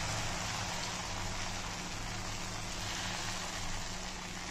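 Oats dosa batter sizzling steadily on a hot iron dosa tawa as it is spread thin with a ladle.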